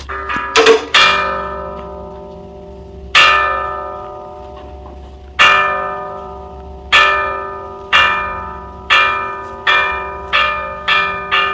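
A small metal Buddhist ritual bell struck by hand over and over. Each strike rings with a bright metallic tone that fades away. A few quick strikes open the passage, then the strikes come about two seconds apart and speed up steadily toward the end, as in a temple chant's accelerating bell roll.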